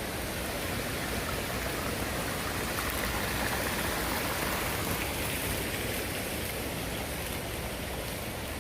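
Steady rushing noise, even and unbroken, of the kind running water gives.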